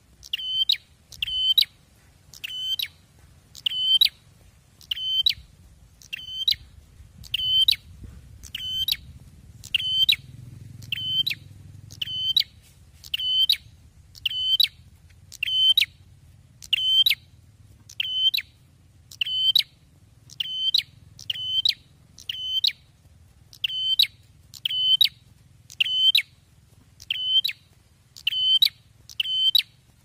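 Ashy tailorbird (prenjak) calling loudly: sharp, high, ringing notes repeated about once a second, sometimes two in quick succession.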